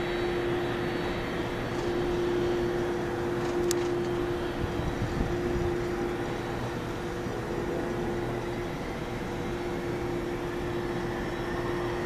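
Distant Boeing 767-300F freighter's jet engines running steadily at low power before the takeoff roll, a constant hum with a steady tone. A single sharp tick about four seconds in.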